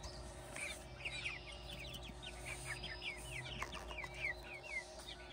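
Hens giving many short, high, falling chirps in quick succession.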